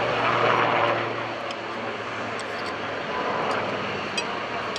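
AgustaWestland AW159 Wildcat helicopter in flight, its rotor and twin turboshaft engines giving a steady rushing drone. The sound is loudest for the first second or so, then fades a little as the helicopter draws away.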